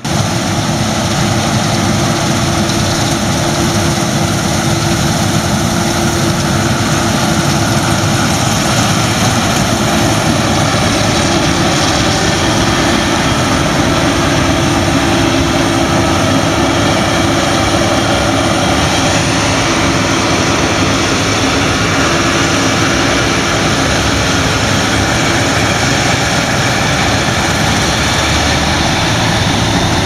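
Claas Lexion combine harvester working in wheat: a loud, steady drone of engine and threshing machinery under load.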